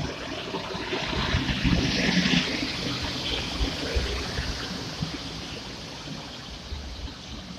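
PKP Intercity EP09 electric locomotive running past at close range: a steady rush of blower hiss over a low rumble of wheels on rail. It swells to its loudest about two seconds in, then slowly eases off as the locomotive moves on.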